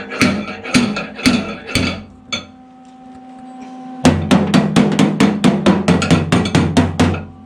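Hammer blows on steel body sheet metal while working a dent out of a car's rear quarter panel. First a few strikes about half a second apart, then a pause, then a fast run of about six taps a second for some three seconds. A steady hum runs underneath.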